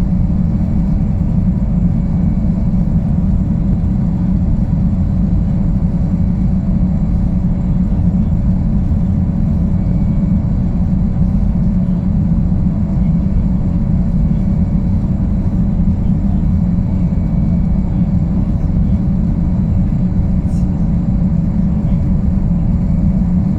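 Boeing Jetfoil 929's gas-turbine and waterjet propulsion running steadily while the vessel proceeds at reduced speed after a suspected collision with an unidentified object. It is a loud, even low rumble with a faint steady whine above it.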